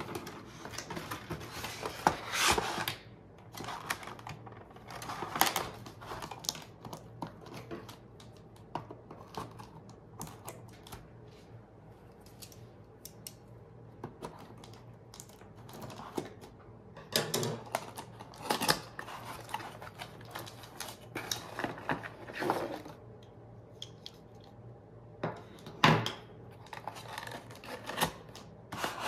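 Cardboard box and packaging inserts handled by hand as a toy truck is unpacked: irregular rustling, scraping and clicking, with a few sharper knocks.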